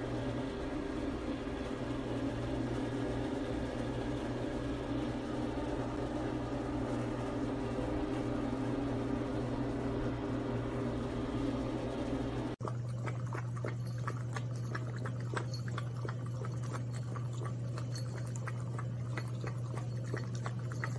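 A steady mechanical hum, then after an abrupt cut a puppy lapping water from a glass bowl: quick, evenly spaced laps over a low steady hum.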